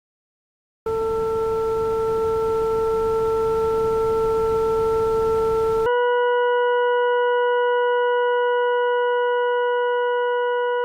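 Computer-generated tones made from polar functions: about a second in, a steady mid-pitched tone with a few overtones starts over a hiss, and about six seconds in it switches to a slightly higher, cleaner steady tone with more overtones, which cuts off abruptly.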